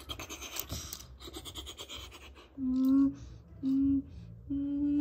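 A quick run of even clicks for about two and a half seconds, then a voice humming a steady machine-like tone three times, two short hums and one longer one that drops in pitch as it ends, imitating the toy crane's motor.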